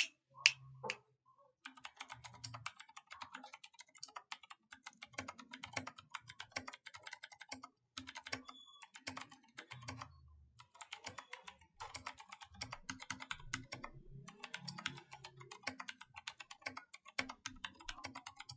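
Typing on a Vortexseries VX64 Lite mechanical keyboard with stock Gateron switches, not lubed or modded: rapid key clacks in runs broken by short pauses.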